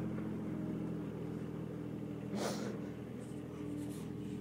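Small site dumper's diesel engine running steadily as it is driven along, with a brief rushing noise about two and a half seconds in.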